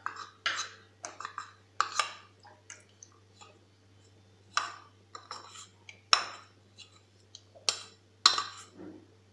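A spoon scraping and knocking against a bowl as a flour-and-milk paste is scraped out into a saucepan of milk: irregular clinks and short scrapes, the sharpest a little past the middle and near the end.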